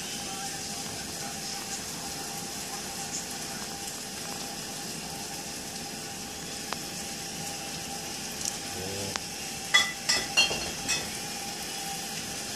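Steady background hiss with a faint steady hum. About ten seconds in comes a quick cluster of four or five sharp clicks and taps.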